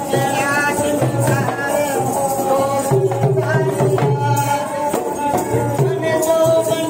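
Live Rajasthani folk music: a bowed string instrument carries a held, wavering melody over a steady drum beat, with jingling percussion on top.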